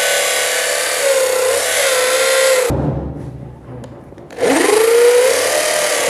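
Bosch corded electric drill boring holes into the wooden edge of a door, a steady motor whine with the bit cutting wood: the row of holes that cuts out the pocket for a mortise lock. It stops about two and a half seconds in, then spins back up with a rising whine a second and a half later and runs on.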